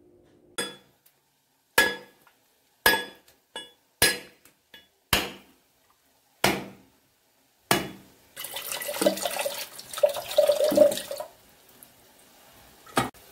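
A whole coconut struck hard seven times, about once a second, each a sharp ringing knock, until the shell cracks open. Then its water pours and splashes into a steel tumbler for about three seconds.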